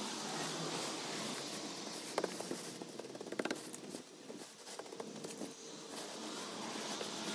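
Wet concrete being packed and spread over wire mesh: scratchy scraping with a few light clicks, busiest about two and three seconds in.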